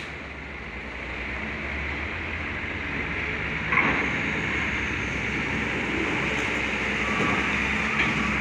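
Hino FM heavy truck's diesel engine running as the truck rolls off a ferry ramp, its tyres rumbling over the steel grating, growing louder as it passes close by. A metallic clank about four seconds in, as the wheels cross the ramp's edge plate.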